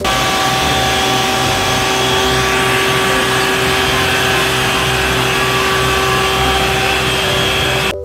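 Isuzu water tanker truck running its pump and spraying water from a roof-mounted water cannon: a steady rushing hiss with a steady mechanical hum under it.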